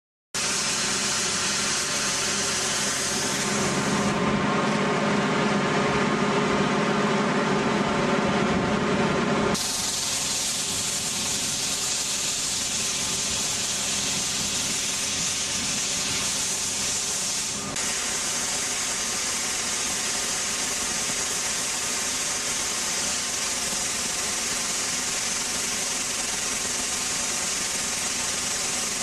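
Ultra-high-pressure water jet blasting steel with water only, no abrasive: a loud steady hiss of the jet with a droning machine pitch underneath. The sound changes abruptly about 4, 10 and 18 seconds in.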